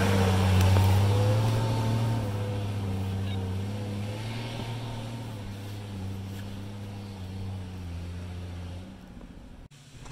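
Toyota FJ40's engine running at low revs as the truck crawls past and pulls away, its steady hum fading gradually, then stopping near the end.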